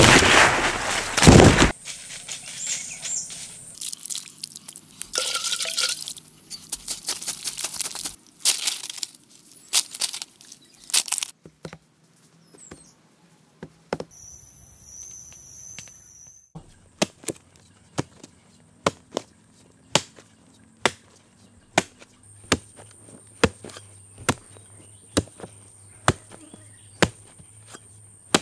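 A hoe blade chopping into dry soil: a steady series of sharp knocks about once a second through the second half. It follows a loud rushing noise in the first second or two and scattered clicks and knocks.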